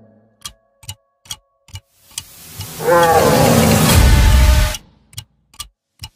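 Trailer sound design: sharp ticks about two a second, then a rush of noise swelling into a monster's roar for nearly two seconds that stops abruptly, after which the ticks resume.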